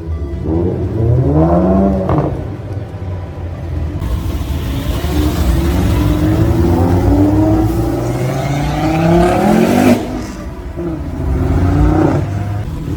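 Modified car engine revving and accelerating: a short rise in pitch about a second in, then a long climb in pitch that cuts off sharply about ten seconds in, and another brief rev near the end.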